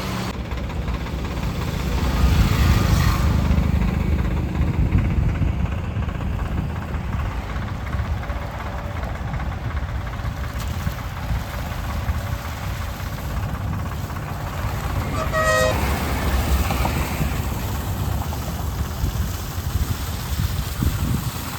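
Heavy diesel construction machinery running steadily with a deep rumble, and one short horn toot about fifteen seconds in.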